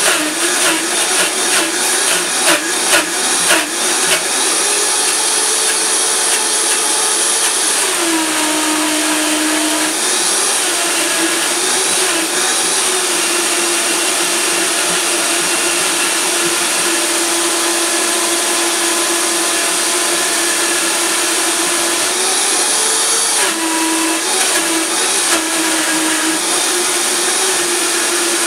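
High-powered countertop blender running, with a tamper pushed down through the lid, blending soaked cashews with coconut water and meat into a thick cream. Uneven and choppy for the first few seconds, then a steady motor whine whose pitch drops for a couple of seconds twice, about eight seconds in and again near the end.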